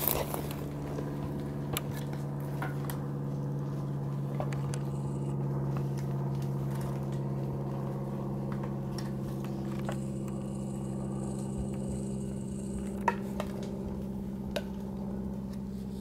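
Flying insects buzzing: a steady, even drone with no break. A high hiss joins from about ten seconds in for several seconds, and a couple of sharp clicks sound near the end.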